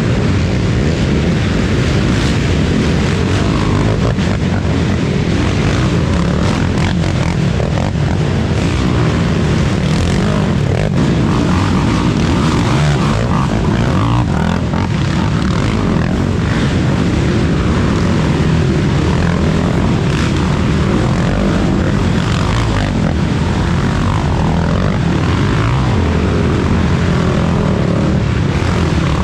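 Racing ATV engine running hard and continuously, its pitch rising and falling with the throttle.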